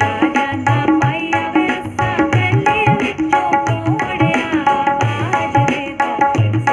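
Tabla played in a quick, steady rhythm, with deep bayan strokes and ringing dayan strokes, over the recorded song's backing music.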